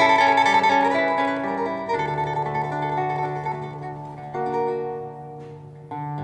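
Recorded instrumental music with plucked strings, played on a valve-amplifier hi-fi system. A melodic phrase of held notes dies away about five seconds in, and a new phrase starts near the end.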